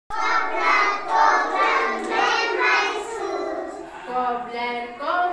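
A group of young children singing a rhyme together.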